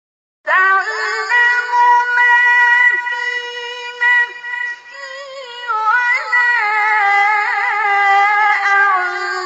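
A male Quran reciter's high voice chanting in the melodic mujawwad style. It comes in abruptly about half a second in on a long held note, then from about five seconds in moves into wavering, ornamented melodic runs.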